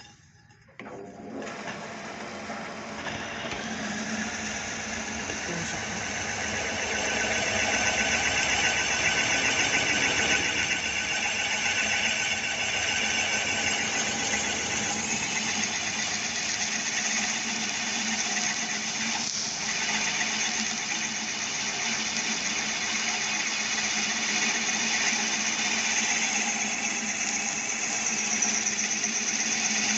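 Drill machine starting up about a second in and then running steadily as it bores a hole through a metal bracket flat bar, the motor and cutting noise building over the first several seconds and then holding steady.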